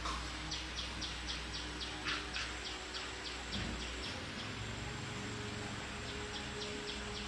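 A bird calling: a run of short, high chirps, about four a second, repeated twice, over a steady low background hum.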